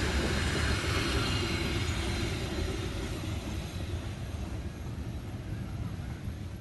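Commuter train passing close by, a steady rumble and rush of the carriages on the rails, easing off a little near the end.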